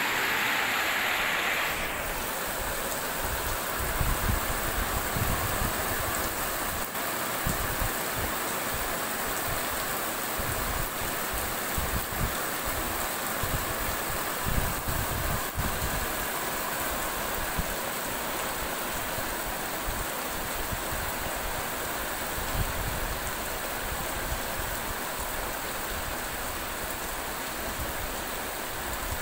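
Heavy rain pouring onto a street, a steady rushing hiss, with irregular low rumbles now and then.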